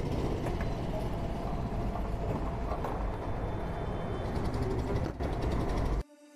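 Engines and traffic noise, steady and fairly loud, that cut off abruptly about six seconds in.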